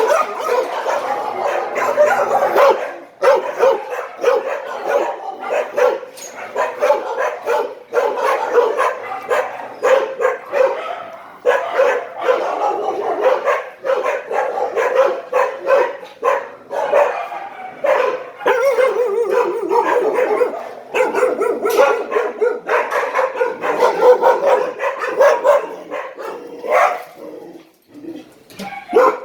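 Shelter dogs barking and yipping over one another, a constant overlapping din that drops away briefly near the end.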